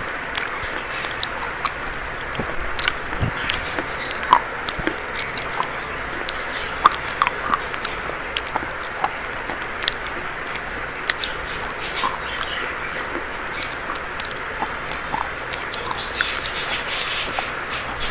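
Dry chalk being bitten and chewed: a run of irregular, crisp crunches and crackles.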